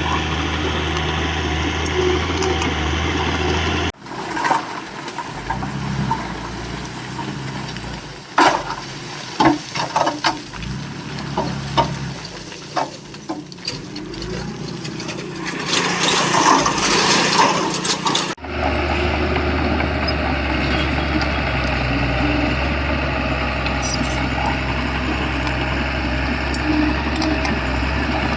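Shantui bulldozer's diesel engine running steadily. In a stretch in the middle the engine hum drops away, replaced by irregular knocks and clanks and a brief rushing noise.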